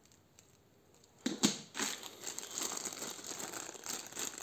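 A clear plastic bag of small drip-irrigation stakes crinkling loudly as it is picked up and handled in the hands, starting about a second in.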